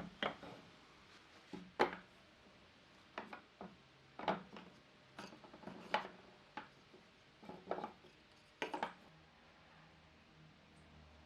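Irregular sharp knocks and clicks of wooden pieces being handled and set against one another, a dozen or so spread unevenly, dying away near the end.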